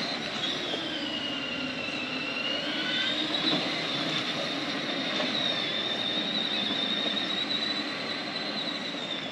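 High-pitched whine of small electric motors running steadily over a rushing hiss. The whine dips in pitch about two seconds in and rises back a second later.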